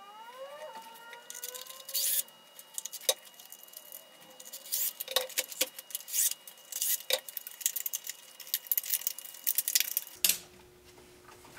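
A DeWalt cordless impact driver's motor whirring up in pitch over the first two seconds, then irregular light clicks and metallic clinks of screws and small parts being handled on the RC truck's chassis. Near the end the clicking stops and a faint low hum is left.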